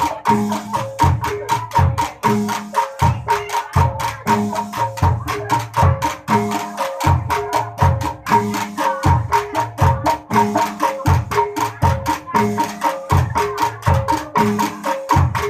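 Dongkrek traditional percussion music: drum strokes and sharp wooden clacks in a steady, repeating rhythm over sustained ringing tones.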